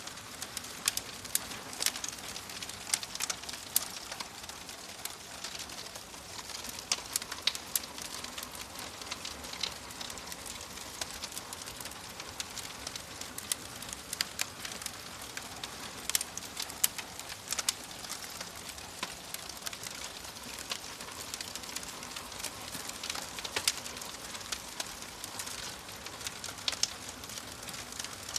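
Wood fire in a fireplace crackling, with a steady soft hiss and frequent sharp pops and snaps at irregular intervals.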